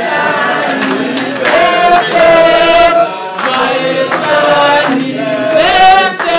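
A group of voices singing a song together in held, sustained notes, phrase after phrase.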